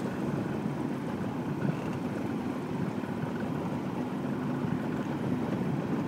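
Steady low rumble of a boat engine running, with the wash of water around it.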